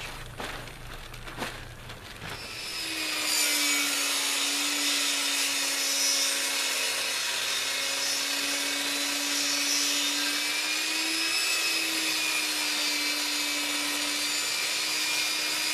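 A table saw ripping a wooden board, the blade running steadily under load with a constant hum beneath the cutting noise, starting about two and a half seconds in.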